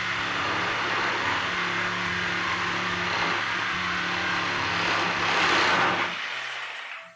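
XCORT XMQ01-65 electric jigsaw running, its reciprocating blade cutting through a small piece of wood: a steady motor buzz with the blade's rasp, louder about five seconds in. Near the end the saw stops and winds down.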